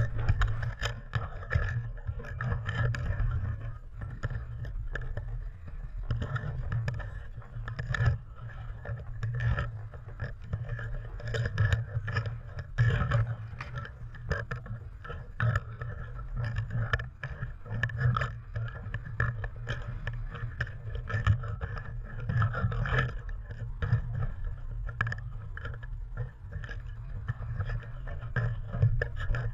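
Muffled low rumble with frequent knocks and scrapes, heard through a GoPro's waterproof housing as it rests against and bumps on a small aluminium-sided open boat.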